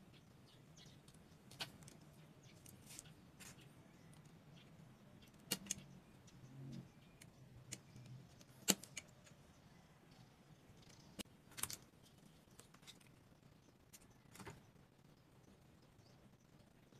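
Scattered small, sharp clicks and taps of a utility knife blade cutting a bamboo toothpick into short pieces on a wooden board, irregularly spaced with the loudest about halfway through, over a faint low hum.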